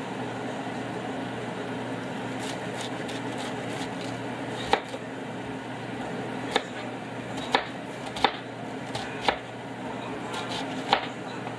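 Kitchen knife cutting through a head of green cabbage and striking an end-grain wooden cutting board. A few faint cuts come first, then about six sharp, irregularly spaced knocks in the second half, over a steady low hum.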